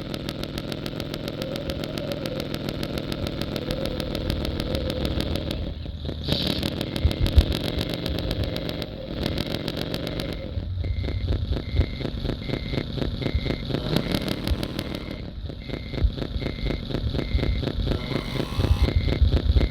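Radio-controlled model trucks running, with electric motor and gearbox whine and an engine-like drone, in several short cut-together clips. From a little past halfway, a short electronic beep repeats steadily about every 0.7 seconds.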